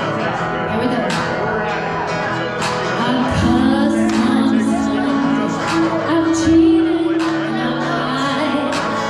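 Live band playing a song with acoustic and electric guitars, bass and keyboard, and singing; the music grows fuller and louder about three seconds in.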